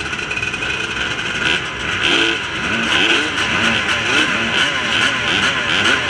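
Motocross dirt bike engine revving hard, its pitch sweeping up and dropping again several times a second as the throttle is worked and gears are changed, over a steady rushing noise.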